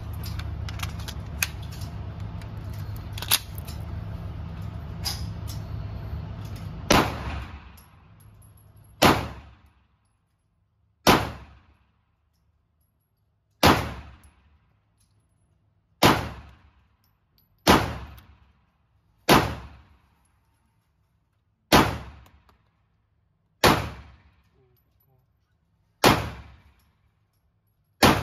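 Canik TTI Combat 9mm pistol firing about ten single shots, slow and evenly paced about two seconds apart, each shot echoing briefly in an indoor range. Several seconds of rattling handling noise and a few clicks come before the first shot.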